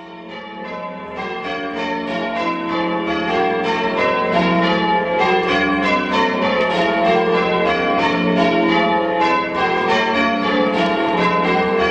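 Carfax Tower's ring of six church bells, cast by Richard Keene in 1676 with the tenor in F, being rung in changes: a steady succession of bell strikes, several a second, each note ringing on under the next. The sound fades in over the first few seconds.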